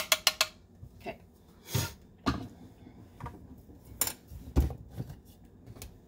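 Clinks and knocks of a blade coffee grinder's lid and stainless steel cup being brushed out and tapped over a bowl: a quick run of clicks at the start, then single knocks every half second to a second, the loudest a dull thump a little past four and a half seconds in.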